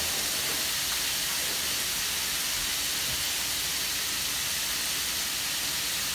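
Food frying in a pan, a steady sizzle.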